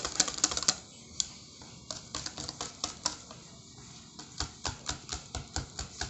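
Wire whisk clicking against the side of a stainless steel bowl as chocolate icing is beaten by hand, fast and loud in the first second, then a regular four to five clicks a second.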